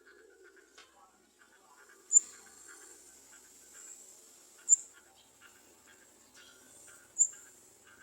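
Garden sunbird at the nest giving three sharp, very high-pitched chirps about two and a half seconds apart, over faint, softer chirping.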